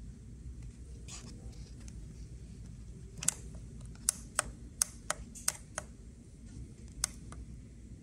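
Pushbuttons on an aging Trane air-conditioner wall controller being pressed, about eight sharp clicks in quick succession over a low steady hum. The clicks come in the middle of the stretch, with one last click near the end.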